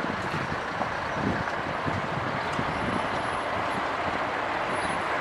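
Steady noise of road traffic, with vehicle engines running.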